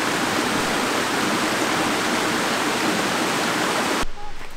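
Shallow stream rushing steadily over rocks. It cuts off abruptly about four seconds in, leaving much quieter outdoor ambience.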